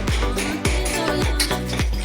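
Background dance music with a steady, fast beat of about three strikes a second and deep bass notes that drop in pitch.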